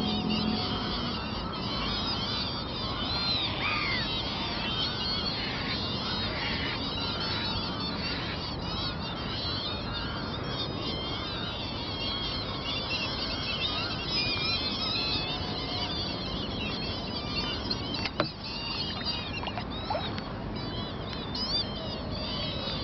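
A large flock of birds calling all at once, with many short overlapping calls. A single sharp knock comes about 18 seconds in.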